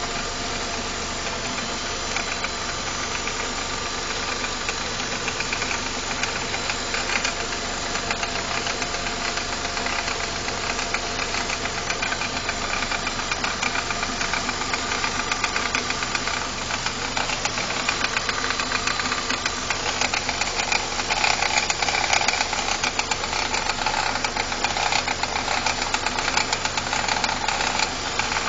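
BMW E46 318i's N42B20 four-cylinder engine running with a fast, continuous rattle from the intake area, getting louder about two-thirds of the way in. The source of the rattle is unknown: the owner cannot tell whether it comes from the visible intake parts or from somewhere beneath them.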